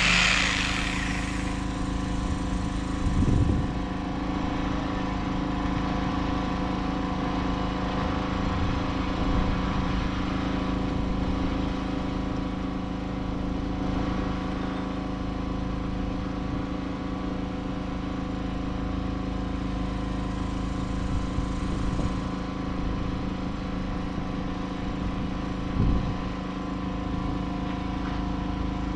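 A machine with a small engine or motor running steadily at a constant pitch, with a couple of brief louder knocks about three seconds in and near the end.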